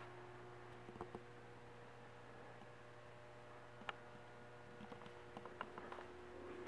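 Near silence: room tone with a faint steady hum and a few light clicks and taps, a couple about a second in, one near four seconds and a cluster near the end.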